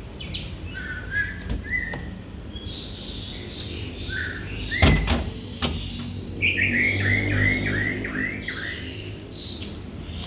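Birds chirping, with a quick run of chirps in the second half. About five seconds in, a few sharp clicks, the loudest sounds here, as the car's driver door is unlatched and opened.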